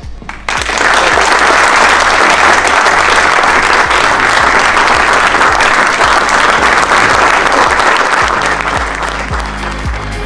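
A large audience applauding, starting suddenly about half a second in and thinning out near the end, over background music.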